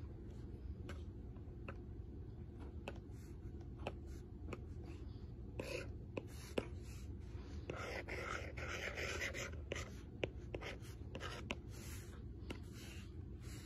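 Apple Pencil with a replacement fine-point tip tapping and stroking on an iPad's glass screen: sharp clicks scattered throughout, the loudest about halfway through, with a longer scratchy drawing stroke a little past the middle. A steady low hum runs underneath.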